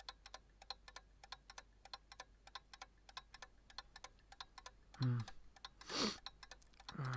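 Clock ticking steadily, about four ticks a second. About five seconds in, a low human vocal sound with falling pitch, a loud breathy rush, and another low vocal sound break in over the ticking.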